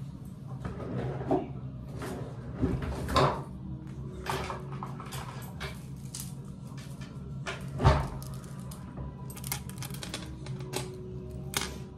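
Small items being handled: scattered clicks, clinks and knocks, the sharpest one about eight seconds in, over a steady low hum.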